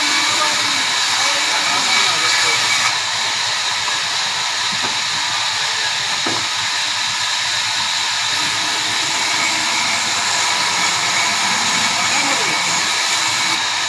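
Large sawmill machine running with a loud, steady hiss and whine.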